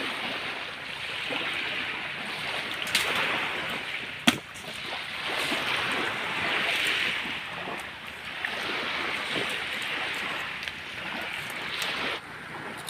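Wind through pine trees: a surging hiss that swells and fades every few seconds, with a sharp click about four seconds in.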